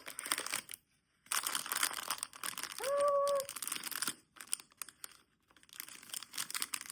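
Blind-box packaging being torn open and crinkled by hand, in irregular crackly bursts that are heaviest from about one to four seconds in. A brief steady tone sounds about three seconds in.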